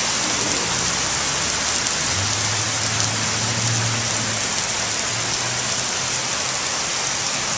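Heavy monsoon rain pouring down steadily, mixed with floodwater rushing down a street. A low hum comes in about two seconds in and fades out a few seconds later.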